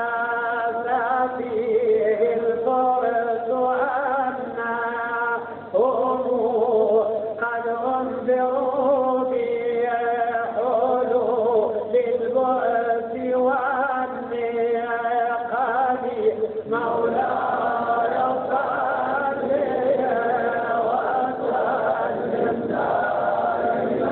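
A man chanting a qasida in long, wavering melodic lines. About two-thirds of the way through, the sound thickens as other voices chant together.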